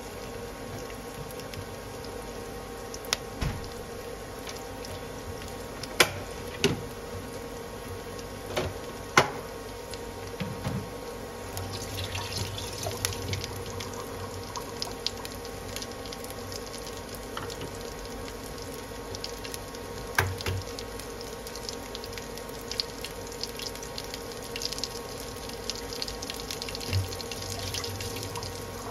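Chopped garlic frying in a little oil in a wok: a steady soft sizzle with scattered sharp pops and crackles, busier from about halfway through and again near the end. A steady low hum runs under it.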